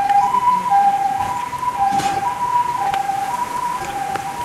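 Two-tone hi-lo siren, alternating between a higher and a lower note about every half second and slowly easing off in loudness.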